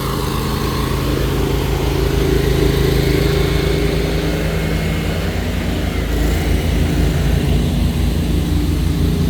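Gas-engine pressure washer running steadily under load, with a deep even engine pulse.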